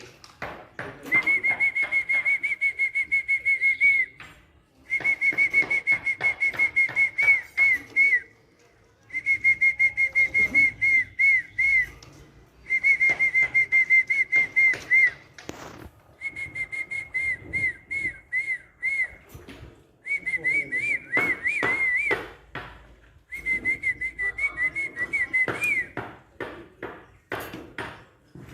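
A bird giving rapid, repeated high whistled chirps in bursts of two to four seconds, with short pauses between the bursts.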